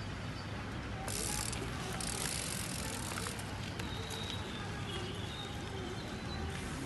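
Mountain bike being ridden, its tyres rolling and its rear freewheel ratcheting, with a steady rush of noise that brightens in short stretches.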